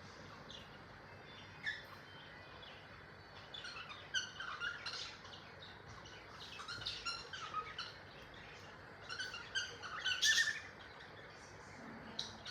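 Cockatiel chirping in short clusters of quick, high chirps with quieter gaps between; the busiest clusters come around the middle and near the end, the loudest about ten seconds in.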